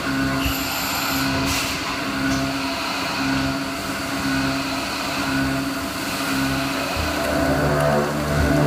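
CNC milling machine taking a full-width cut in metal with a 40 mm cutter at 1500 rpm, giving a low humming tone that pulses on and off at an even pace over a steady hiss of cutting. About seven seconds in the tone changes and steadies.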